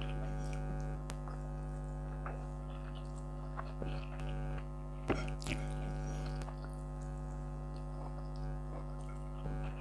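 Steady droning hum of a room air conditioner left running, with faint chewing and a few sharp mouth clicks over it, the sharpest about five seconds in.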